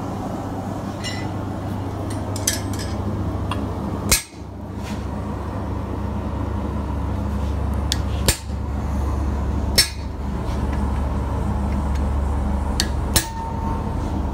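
Hammer striking a hand punch into hot steel on an anvil: about five separate sharp metallic blows several seconds apart while the punch is set and moved between strikes, over a steady low hum.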